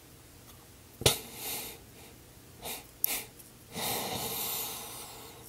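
A man's held-in laughter, breathy and without words: a sudden burst about a second in, a few short ones in the middle, and a longer breathy one near the end.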